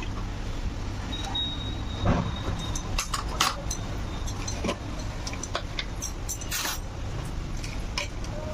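Scattered light clinks and knocks of kitchen utensils and containers as ingredients are added to the chicken marinade, over a steady low hum.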